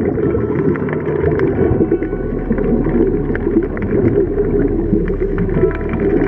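Muffled underwater noise picked up by a submerged camera: a steady, dense low rumble with scattered small clicks.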